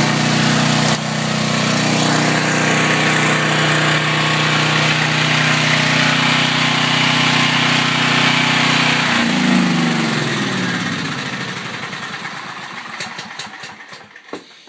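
Briggs & Stratton 11 hp generator engine running steadily on propane through a tri-fuel conversion kit, then shut off about nine seconds in: its pitch falls and it winds down to a stop over about five seconds, with a few last clicks near the end.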